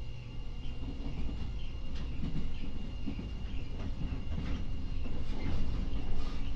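Stationary 415 series electric train with its door open: a steady high whine and low hum from its onboard equipment, with irregular clicks and low knocking that set in from about a second in and grow a little louder.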